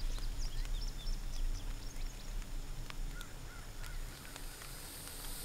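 Field ambience of birds giving short scattered chirps, a few lower calls about three seconds in, over a steady high insect hum and a low steady drone underneath.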